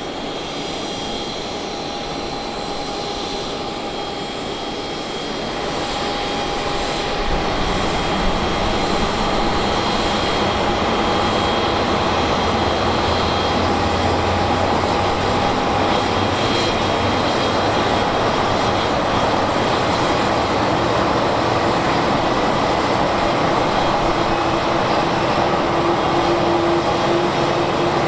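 Boeing 737-800's CFM56-7B turbofan engines running at taxi power as the airliner taxis past: a steady jet whine over a broad rush of engine noise. It grows louder over a couple of seconds about six seconds in as the aircraft comes close, and a low hum joins near the end.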